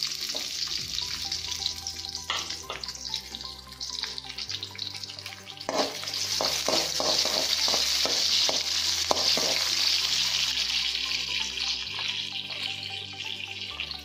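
Sliced onions sizzling in hot groundnut oil and ghee in a metal kadai, with a metal spatula stirring them. A quick run of clicks and scrapes of the spatula against the pan comes about six to nine seconds in.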